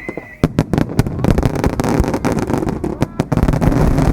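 Star mine fireworks barrage: a whistling shell trails off in the first half second, then a rapid string of shell bursts and crackling that thickens into a near-continuous crackle and rumble after about a second.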